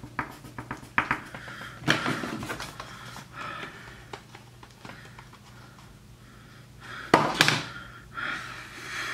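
Small desk sounds: a pencil scratching and tapping on paper, with scattered light clicks and a few short rustling swishes, the loudest about seven seconds in, over a low steady hum.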